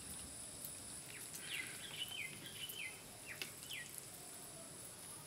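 A bird giving a run of quick falling chirps from about one and a half to four seconds in, over a steady high insect hum.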